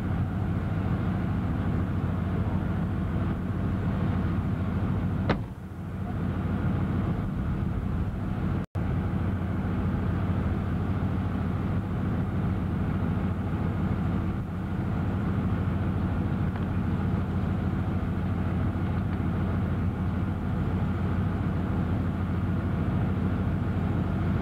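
Steady low engine drone with a constant hum, from the diesel-powered crawler-transporter carrying the space shuttle during rollback. A sharp click comes about five seconds in, followed by a short dip in level, and the sound cuts out for an instant near nine seconds.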